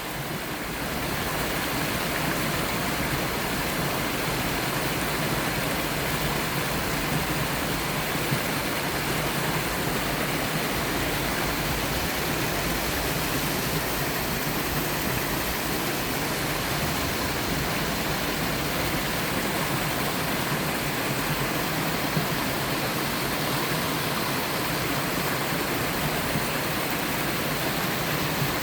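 Mountain waterfall, a three-tier fall into twin pools, rushing steadily after fading in over the first second.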